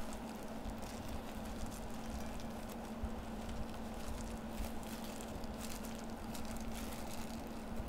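Boiled chicken breast being torn into shreds by hand: soft, irregular crackling and tearing of the meat fibres, over a steady low hum.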